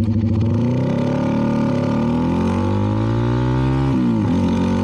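CFMoto 300NK's single-cylinder engine running through an aftermarket KO exhaust under acceleration, with a passenger aboard. The pitch climbs, holds, then drops sharply about four seconds in and rises again as the rider shifts up a gear.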